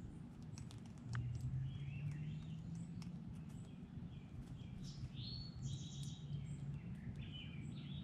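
Small songbirds chirping and calling with short, slurred notes, with a few faint clicks, over a low steady hum that grows louder about a second in.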